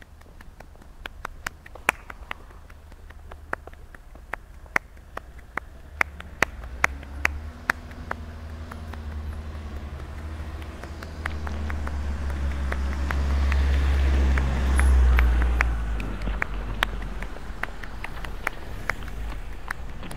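Scattered sharp clicks, unevenly spaced, over a low rumble that builds to a peak about three-quarters of the way through and then eases off.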